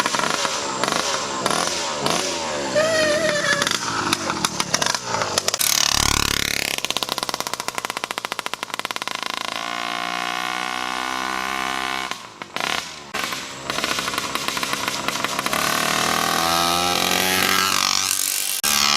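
Small Chinese 66/80cc two-stroke motorized-bicycle engine, apparently without a muffler, revving up and down as the bike is ridden. Its pitch sweeps about six seconds in and again near the end, as if it passes by, with a short dip in level a little after the middle.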